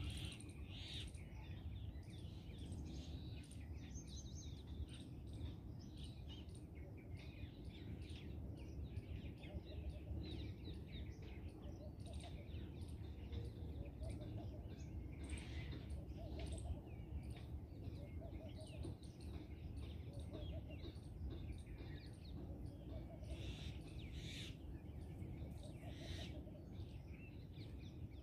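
Small birds chirping and calling in short, scattered notes over a steady low rumble.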